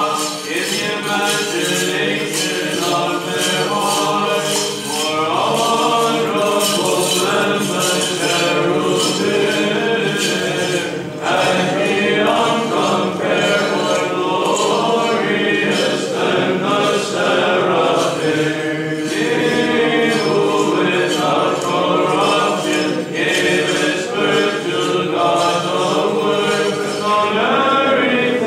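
Unaccompanied choir singing Orthodox liturgical chant: several voices sustain and move through slow melodic lines without a pause.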